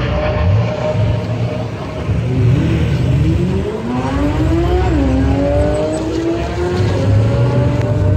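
Chevrolet Camaro accelerating past. Its engine note climbs for a few seconds, drops once at a gear change about five seconds in, then climbs again more slowly.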